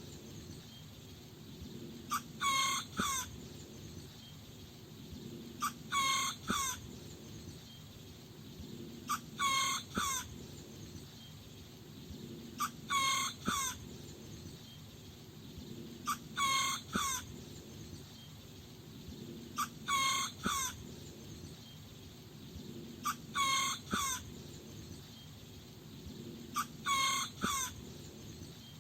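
A small rooster crowing: short crows of a few notes each, eight in all, one about every three and a half seconds.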